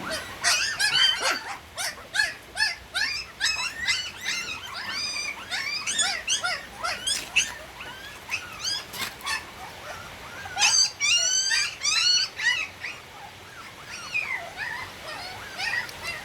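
A litter of puppies whimpering and squealing, many short high-pitched cries overlapping in quick succession, as they jostle to nurse. The crying thins out in the middle and near the end, with another thick flurry about two thirds through.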